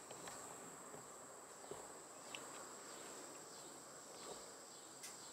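Faint, steady drone of insects at one constant high pitch, with a faint click or two.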